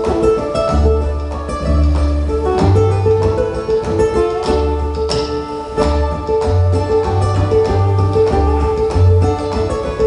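Live ukulele and cello duet: the ukulele picks a quick tune while the cello plays low notes underneath, held for up to a second or so and recurring every second or two.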